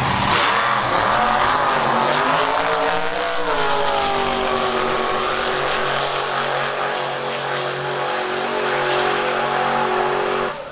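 Drag racing car launching and accelerating hard down the strip, its engine note climbing for about three seconds, dropping once, then holding high.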